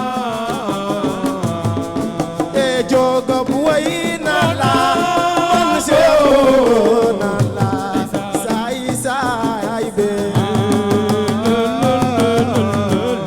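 Senegalese assiko band music: a voice singing with wavering, gliding pitch over a steady drum rhythm.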